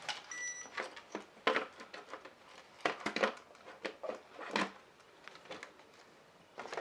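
Scattered clicks and knocks from handling the plastic RC crawler and its wiring, with a brief high beep about half a second in.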